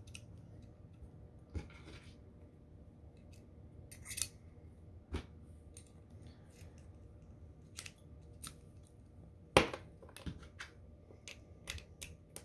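Scattered small metal clicks and taps of a Glock 23 slide's parts being handled and fitted as the extractor plunger and spring go back in, with one sharper click about two-thirds of the way through.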